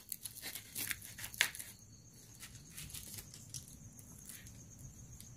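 Faint crinkling of plastic packaging, with a few light clicks in the first second and a half.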